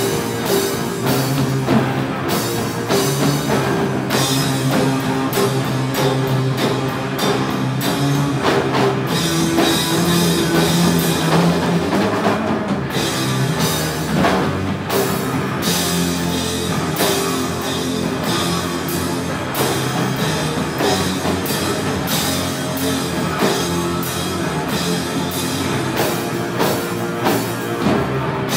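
Live rock band of electric guitar and drum kit playing loudly together: sustained guitar chords over steady drumming with frequent cymbal crashes.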